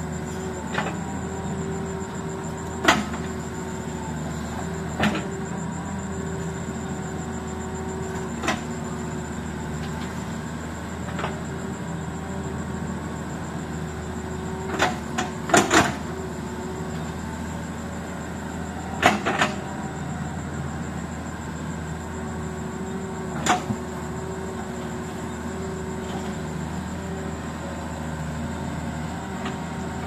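Heavy machine's diesel engine running at a steady drone, with sharp knocks every few seconds and a few in quick succession about halfway through.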